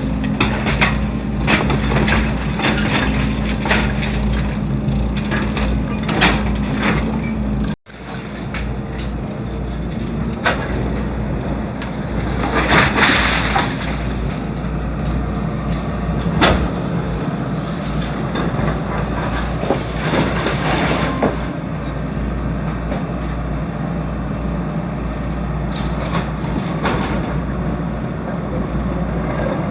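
Hydraulic excavator working on a concrete house: its diesel engine runs steadily under repeated knocks and cracks of concrete and debris being broken and shifted, with a couple of hissing rushes. The sound cuts out for an instant about eight seconds in.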